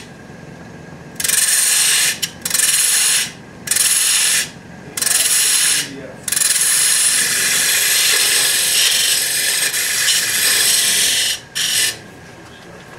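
A turning tool cutting into a workpiece spinning on a wood lathe, in five short cuts of about a second each, then one long cut of about five seconds and a brief last one. Between cuts only the lathe's lower running sound is left.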